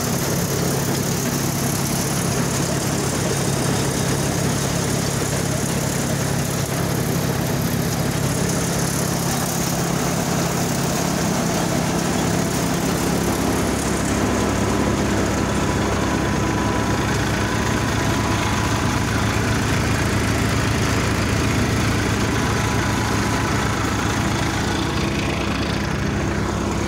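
Tractor engine running steadily and driving a cutter-thresher that is threshing barley, a continuous machine drone; its pitch shifts slightly about halfway through.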